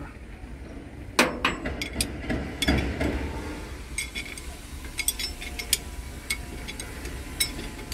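Steel spanner clicking and clinking against the fittings of an excavator's hydraulic control valve as it is worked on, in scattered sharp metallic taps. A steady low hum runs underneath.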